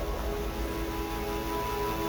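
Ambient music: several held, steady tones come in at the start over a low rumble.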